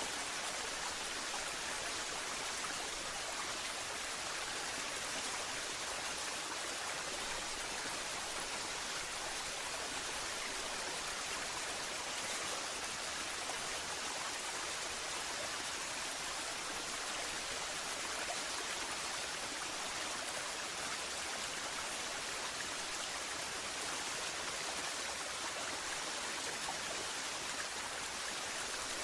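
Waterfall: a steady rush of falling water, bright and hissy, with little deep rumble.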